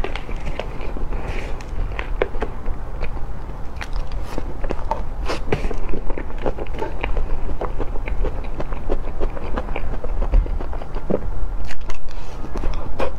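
Close-up eating sounds of soft cream sponge cake: wet chewing and mouth clicks, with an occasional metal fork scraping and tapping the plate.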